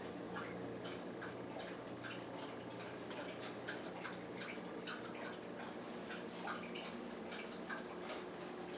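Quiet room with a steady low hum and faint, irregularly spaced light clicks and ticks.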